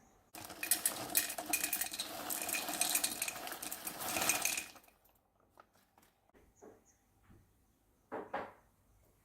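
Dense clattering of many small hard objects against a hard container, like dishes or glass, for about four seconds, stopping abruptly. A couple of short knocks follow near the end.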